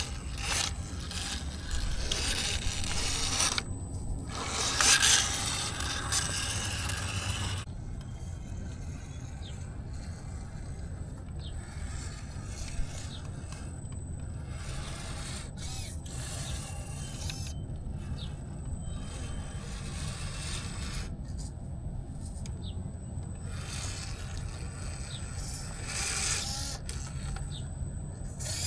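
Axial Capra radio-controlled rock crawler driving over rough wet ground: its drivetrain whirs in bursts and its tyres scrape and grind over the surface, loudest in the first several seconds and again near the end.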